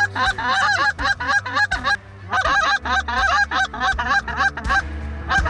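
Goose honking in fast, even runs of about five honks a second, pausing briefly about two seconds in and again near the end.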